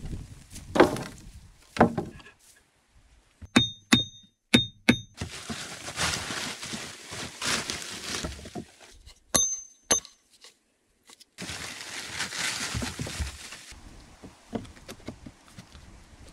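Log-building work sounds: two heavy wooden knocks, then four sharp taps with a short metallic ring, and long stretches of rustling plastic tarp sheeting being handled, with two more ringing taps and light knocks between.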